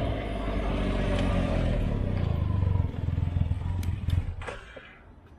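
Can-Am Ryker three-wheeler's engine idling steadily through its aftermarket or stock exhaust, then falling away about three seconds in and fading out, with a few sharp clicks as it dies down.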